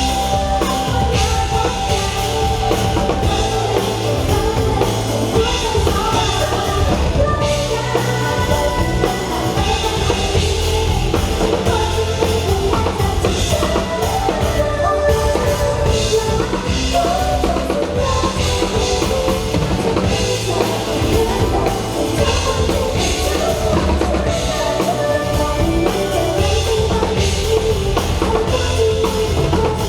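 A pop-rock song with a steady drum-kit beat and a singing voice over it.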